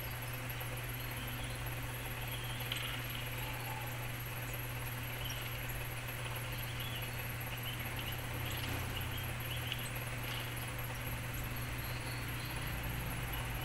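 Lovebirds chirping faintly and intermittently through a cellphone's small speaker, over a steady low hum.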